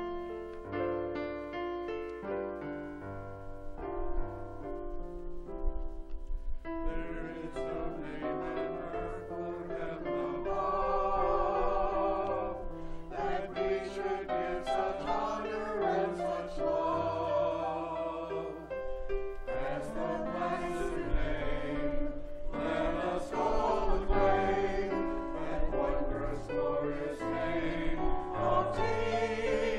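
A small church choir sings a hymn anthem with piano accompaniment. The piano plays alone for the first several seconds, and the choir's voices come in about seven seconds in.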